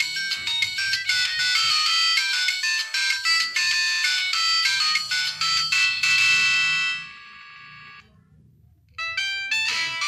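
Built-in polyphonic MIDI ringtones of a Nokia 2608 flip phone playing through its small loudspeaker. One tune stops about seven seconds in, and after a second of quiet the next ringtone starts.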